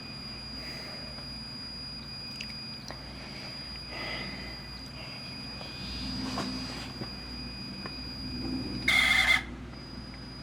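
Pioneer CT-W840R cassette deck mechanism running with a steady high tone and faint short squeaks, then a loud half-second squeal about nine seconds in. The owner suspects a squealing drive belt.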